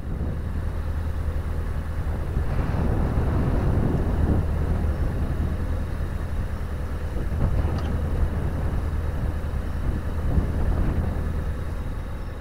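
Narrowboat's diesel engine running steadily under way, a constant low hum, with wind gusting over the microphone in swells.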